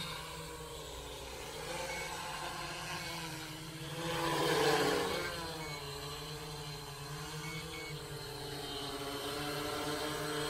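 Walkera Voyager 3 quadcopter's four motors and propellers whining in flight, the pitch wavering up and down as the throttle changes, loudest about four to five seconds in. It runs strongly, not straining.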